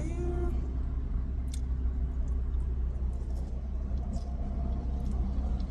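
Steady low rumble inside a car's cabin, with a few faint clicks.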